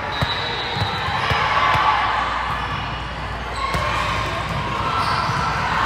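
Basketball bouncing on a gym court during play, a series of irregularly spaced bounces, with background voices.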